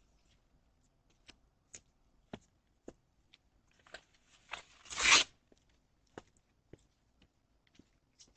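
A string of light taps and clicks, roughly two a second, with one louder scraping rustle about five seconds in.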